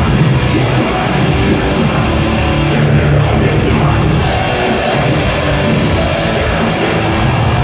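Live metalcore band playing loud, with distorted guitars, drums and vocals, heard from the crowd.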